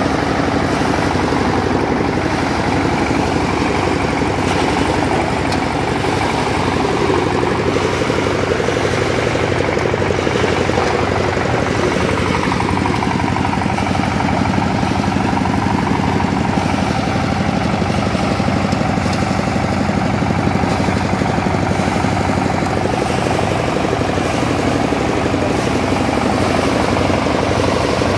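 BRRI-model power paddy thresher running steadily, its belt-driven threshing drum beating rice straw that is being fed in by hand.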